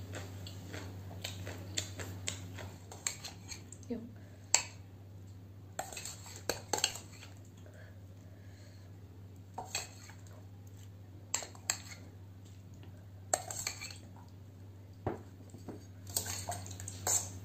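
A metal spoon clinking and scraping against a stainless steel bowl and plate as curry is spooned onto rice, in scattered short clinks and taps over a low steady hum.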